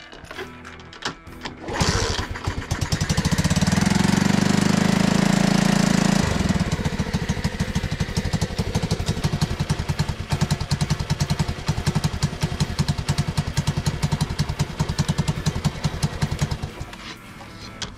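Honda Cub 50's small single-cylinder four-stroke engine starting about two seconds in on a bit of choke. It runs fast and loud for a few seconds, then settles to a quick, even putter at idle, and cuts out near the end.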